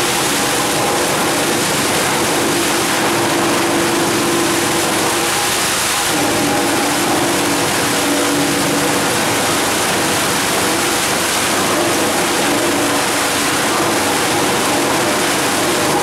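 20 TPH industrial wood chipper running, with a loud, steady rush of wood chips pouring out through its mesh screen over the machine's hum. The hum drops a little in pitch about six seconds in.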